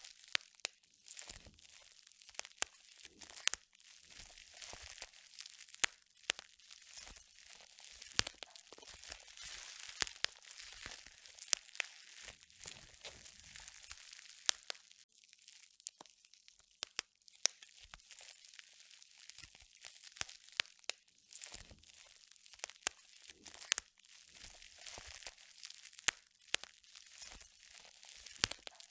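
Continuous crinkling and crunching, like something crisp being crumpled or crushed, with many irregular sharp crackles and a short lull about halfway through.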